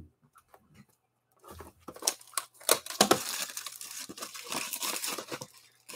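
Plastic shrink wrap being torn and crinkled off a sealed Bowman Sterling card box, a stubborn wrapper that is hard to get off. Scattered crackles start about a second and a half in, building to a steady crinkling that stops shortly before the end.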